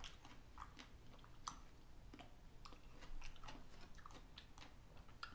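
Faint, close-up chewing of a firm-fleshed white strawberry: irregular soft, wet mouth clicks, several a second.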